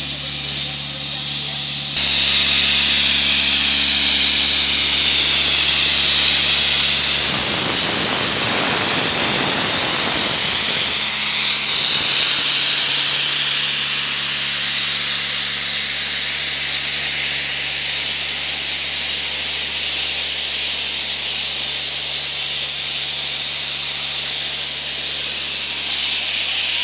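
Compressed air hissing loudly and steadily from a hand-held hose lance, blasting dust off the road surface to prepare it for bitumen, over the steady drone of an engine. The blast grows loudest about eight to eleven seconds in.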